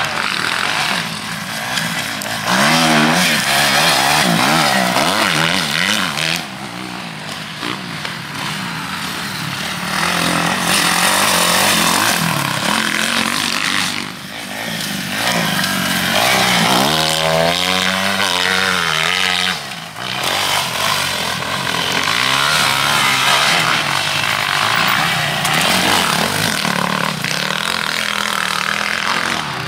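Motocross bike engine revving hard and easing off again and again as it is ridden, its pitch climbing and dropping with the throttle.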